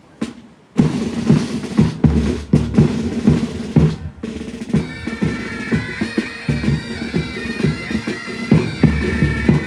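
Military pipe band striking up: after a sharp tap, the drums start playing a rhythmic beat just under a second in, and the bagpipes come in with steady held notes at about five seconds.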